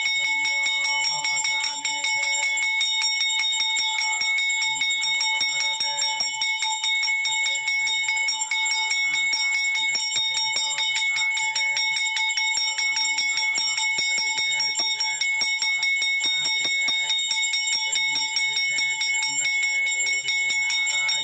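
Temple bell rung continuously with rapid, even strokes, its bright ringing tones held steady throughout, as is done while the arati lamp is waved before the deity.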